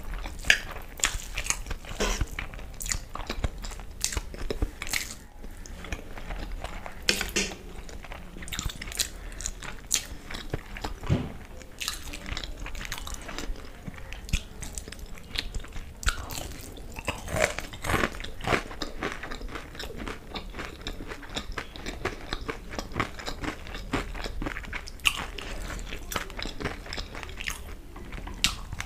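Close-miked eating: biting and chewing fried chicken lollipops and fried masala Maggi noodles. A steady run of short, sharp crunches and mouth clicks.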